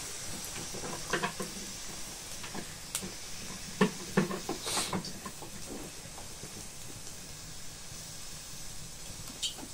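Steady hiss with scattered light knocks and clinks from a plastic jug and metal cookware being handled, the sharpest about four seconds in.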